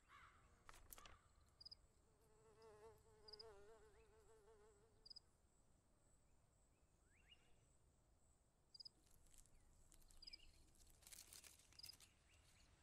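Faint insect sounds: a buzz that wavers up and down in pitch for about three seconds, short high chirps repeating about every second and a half, and scattered light clicks and rustles, bunched together near the end.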